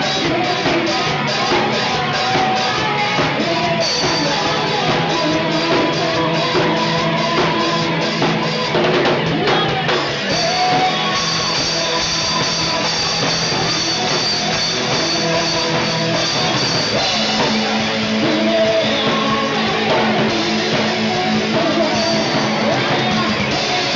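A live band playing an upbeat rock song, with a singing voice carried over drum kit and guitar and a steady, evenly struck cymbal beat.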